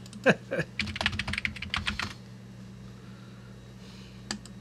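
Computer keyboard typing: a quick run of keystrokes for about two seconds as a search query is entered, then a single click near the end. A steady low hum runs underneath.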